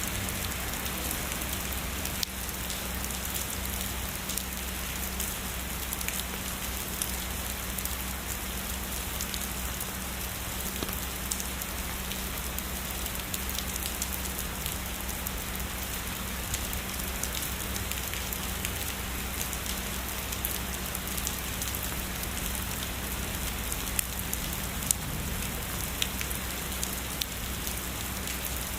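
Steady heavy rain, an even hiss with many individual drops tapping on a surface, a few sharper drop hits standing out near the end.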